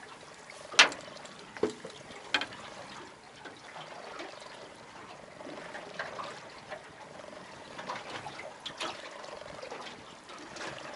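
Water trickling and splashing, with three sharp knocks in the first two and a half seconds, the first the loudest.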